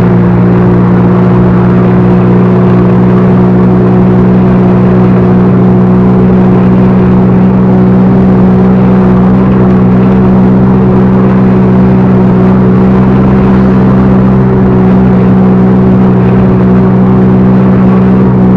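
Backhoe loader's diesel engine running at a steady speed, a loud, even drone whose pitch does not change.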